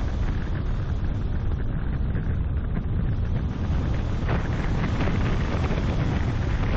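Wind buffeting the microphone of a camera mounted on a car's bonnet, over the low rumble of the car driving along a paved road, with a few faint knocks in the second half.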